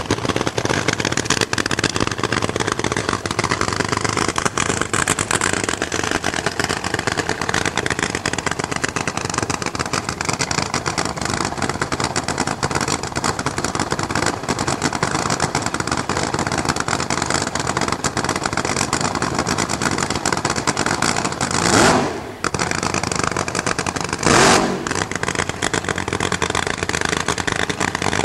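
Supercharged nitromethane engine of an AA/fuel funny car running at low speed, with a dense, rapid firing clatter. Near the end come two short louder blasts about two seconds apart.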